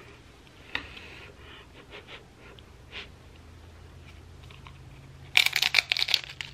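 Tortilla chip with buffalo chicken dip being bitten and chewed. A few faint wet mouth clicks come first, then about five seconds in a loud burst of crunching lasts about a second.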